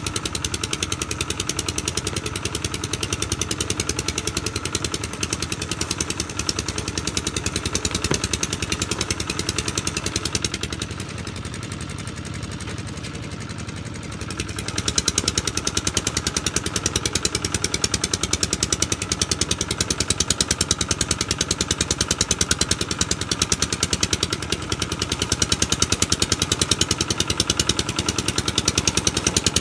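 Công nông farm truck's single-cylinder diesel engine running with an even, rapid beat. It drops quieter for a few seconds about ten seconds in, then picks up louder again.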